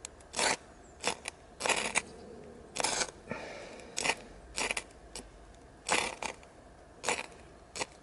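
A striker scraped hard along a small ferrocerium rod from a survival bracelet, about a dozen short rasping strikes at irregular intervals, throwing sparks onto an alcohol prep pad to light it.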